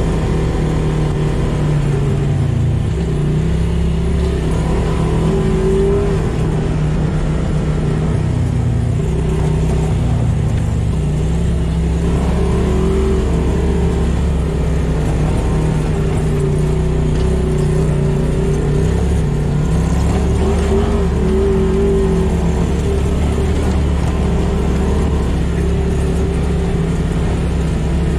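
Polaris RZR side-by-side's engine, heard from inside the cab, running steadily under way, its pitch rising and dipping a little with the throttle.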